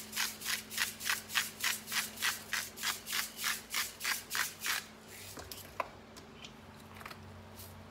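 Hand-twisted salt grinder grinding, a regular crunching at about three to four strokes a second that stops about five seconds in, followed by a few light clicks.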